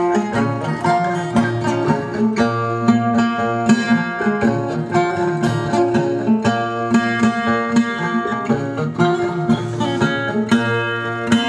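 Music with plucked string instruments carrying a steady rhythm of picked notes.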